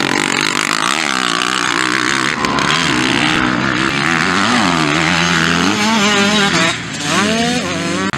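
250cc motocross bike engines running hard, the pitch rising and falling with throttle and gear changes, with several quick climbing revs near the end.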